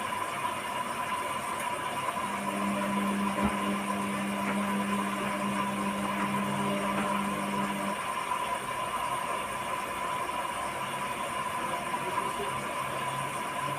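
Hotpoint-Ariston washing machine running with a steady mechanical hum. A lower-pitched motor hum joins in about two seconds in and stops about eight seconds in.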